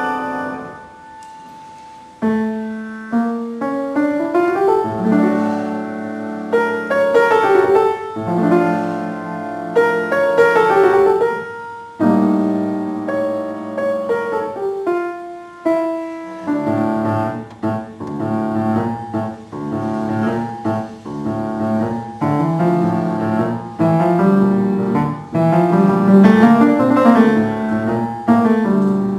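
Solo upright piano playing. A chord dies away into a short pause, then the music resumes with repeated rising runs and turns fuller and louder, with more bass, from about halfway on.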